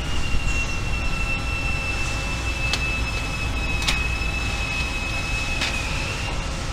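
Steady factory machinery noise at a press brake, with a high steady whine that stops near the end and a few sharp metallic clicks.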